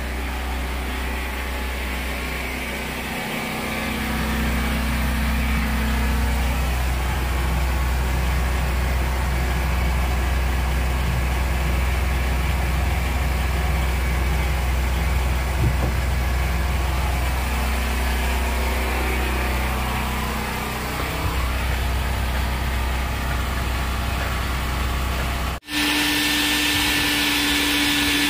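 A steady, engine-like low motor hum with a brief dip a few seconds in. About 26 seconds in it cuts off abruptly and gives way to a wet/dry shop vacuum running with a steady whine.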